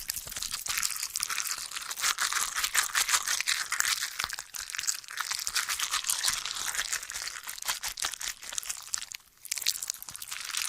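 Gore sound effect: continuous dense crunching and crackling with tearing, with a short break about nine seconds in.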